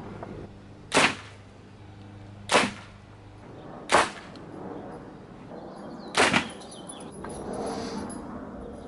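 Four arrows from a Hoyt Ventum 33 compound bow punching through a paper tuning sheet into the target, each a sharp smack, spaced one to two seconds apart. The bow is being paper tuned.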